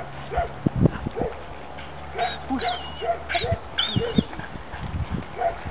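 Belgian Malinois giving a string of short excited yips and high-pitched whines as it heels, a couple of the whines sliding up and down in pitch.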